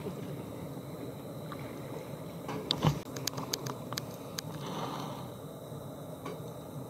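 A portable waffle iron being handled, its lid and grid giving a quick run of sharp clicks and one louder knock midway, over a steady hiss.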